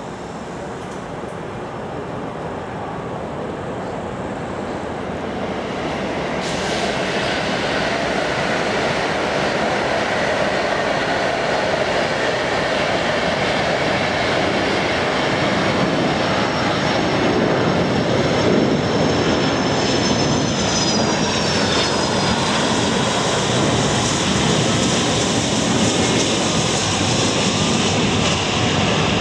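Boeing 757-223 jet engines growing louder as the airliner approaches, then a steady loud rush with a high whine that falls in pitch about twenty seconds in as it passes by.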